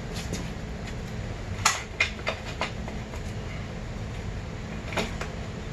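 Sharp metallic clanks. About two seconds in come four quick knocks, the first the loudest, like a metal bar set down and clattering on a concrete floor, then a single knock near the end. A steady low hum runs underneath.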